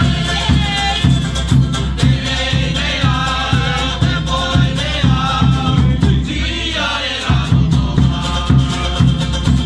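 Live Cook Islands string-band and drum music: guitar and ukuleles strummed over a quick, steady drum beat. The drum beat drops out briefly about seven seconds in, then comes back.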